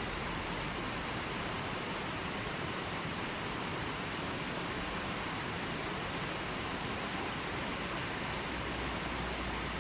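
Steady rushing water, an even, unbroken hiss with no separate splashes or drops.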